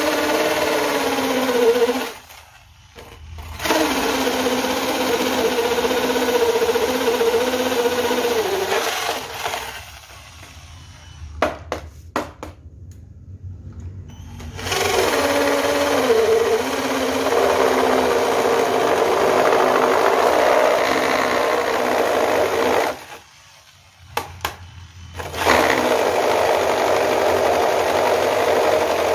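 Corded electric drill converted to run on an 18-volt Makita battery, boring into a red brick. The motor spins up with a rising whine and runs in four long bursts of several seconds, with short pauses between, while the bit grinds into the brick.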